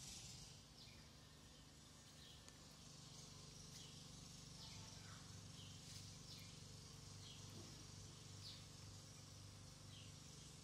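Near silence: faint outdoor background hiss with a steady low hum and faint short high chirps about once a second.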